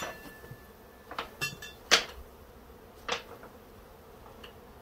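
Honeybee swarm buzzing steadily while bees are knocked off into a wooden hive box, with several sharp knocks. The loudest knock comes about two seconds in.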